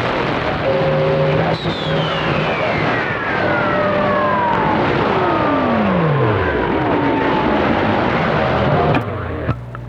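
Radio receiver hiss on the CB band with several whistling tones gliding slowly downward, one sinking to a low hum; the hiss cuts off sharply near the end.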